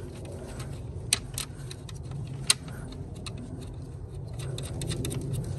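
Scattered light metallic clicks and clinks as the wire terminal and its nut are handled and fitted onto the new alternator's output stud, over a steady low hum.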